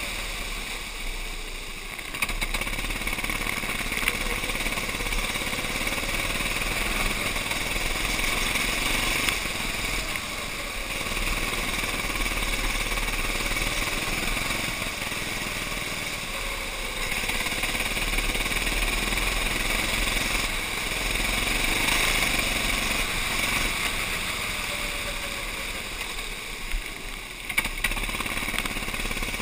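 Racing kart's small engine running under load on a wet track, its pitch rising and falling through the corners, with a steady hiss of tyres throwing up water, heard from a camera on the kart.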